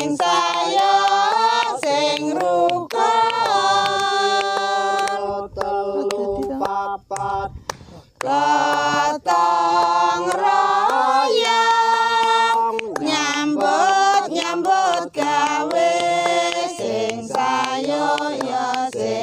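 Unaccompanied singing of a slow, chant-like melody, with long held notes that glide from one pitch to the next and a few short pauses between phrases.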